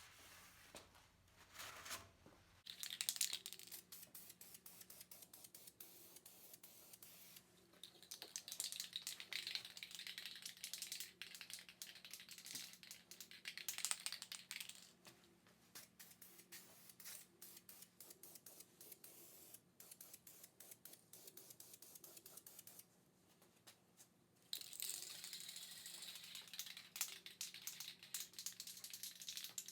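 Aerosol can of filler primer hissing as it is sprayed, in several bursts with pauses between, the longest lasting about seven seconds.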